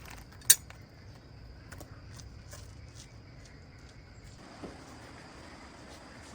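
A sharp, loud clink about half a second in, then scattered lighter knocks and clicks of hard objects being handled, over a steady high-pitched background tone.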